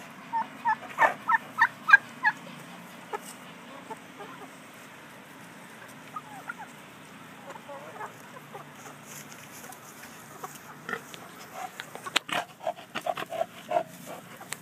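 Chickens clucking: a quick run of about eight short calls in the first couple of seconds, a few scattered clucks after, and another run near the end mixed with sharp clicks.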